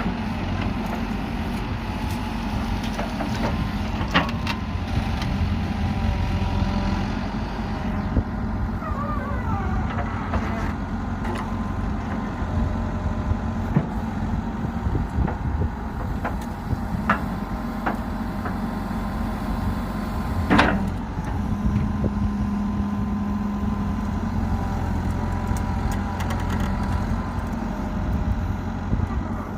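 JCB backhoe loader's diesel engine running steadily under work, with scattered sharp clanks; the loudest comes about two-thirds of the way through.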